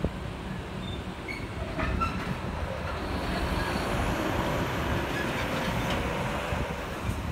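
Heavy container-handling machinery running: a steady low rumble, with a few short squeals in the first couple of seconds and a long, slowly gliding whine from about halfway through.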